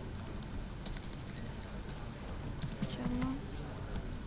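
Computer keyboard keys clicking in scattered, irregular taps over a steady low room hum, with a brief faint voice about three seconds in.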